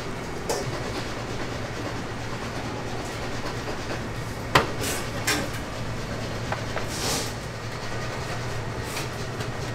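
Kitchen work noise: a steady low hum, like a ventilation fan, with scattered sharp clinks and knocks of metal utensils a second or more apart. The loudest knock comes about halfway through.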